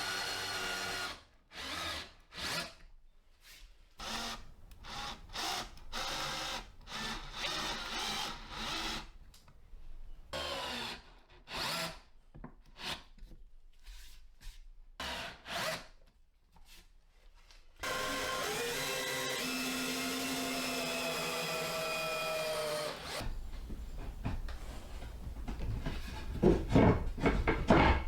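Power drill run in many short bursts, then held running for about five seconds. Low knocks and rumbling follow near the end.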